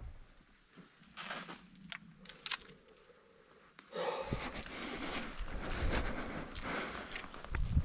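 Footsteps and clothing rustle of people walking a dirt trail, starting about four seconds in. Before that, only a few faint clicks and rustles.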